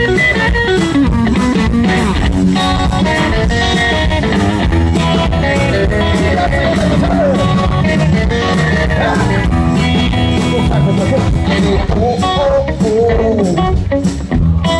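Live band playing bluesy rock music with a lead guitar line whose notes bend in pitch, over a steady drum beat.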